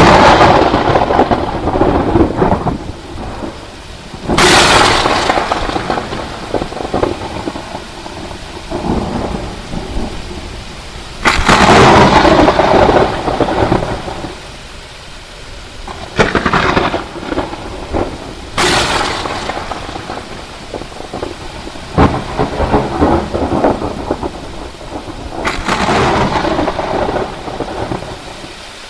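Thunderstorm: about seven loud thunderclaps, each a sudden crack that trails off into a long rolling rumble, over steady rain.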